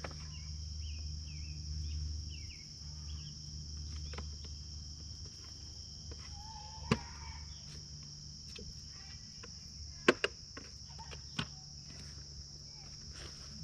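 Steady high insect chirring over a low hum, with a few sharp clicks and taps from hand work on the motorcycle's parts, the loudest two close together about ten seconds in.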